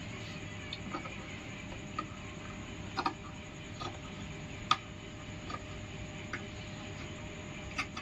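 Tailor's shears snipping through trouser cloth: about eight short, sharp clicks at irregular intervals, the loudest about halfway through, over a steady low hiss.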